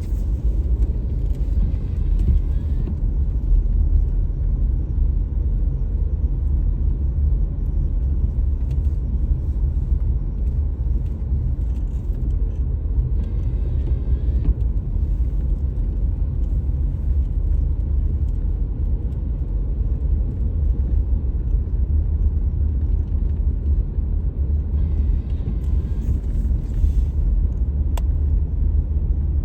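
Steady low rumble of a car being driven, engine and road noise together, with a single sharp click near the end.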